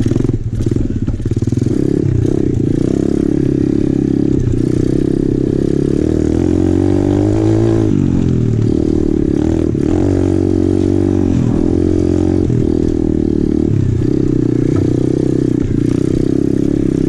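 A 125cc single-cylinder four-stroke pit bike engine running under way, its revs repeatedly rising and falling with the throttle, with a few clattering knocks over the rough ground.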